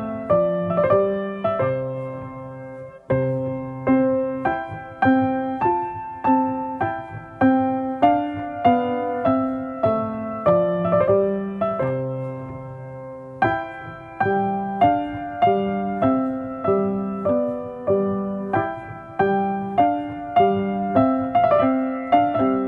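Background music: a gentle piano melody, single notes struck at an even, unhurried pace, each note fading away.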